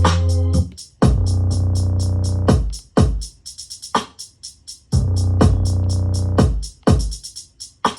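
Electronic beat: a drum machine keeps fast, steady hi-hat ticks over hard kick hits, while organ-like synth chords and a deep bass play in blocks and drop out in between.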